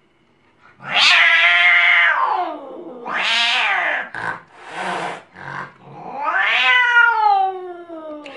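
A white cat in a wire cage yowling angrily in a string of loud, drawn-out calls, with a few short ones in between. The last call slides down in pitch.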